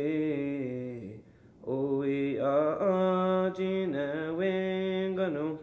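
A man singing a Cayuga song in long held notes without clear words, with a short break about a second in before the next phrase.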